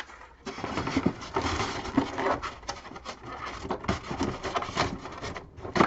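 Rustling and clattering as the plastic track pieces and parts of a vintage Scalextric set are handled in their box, with many small clicks and knocks.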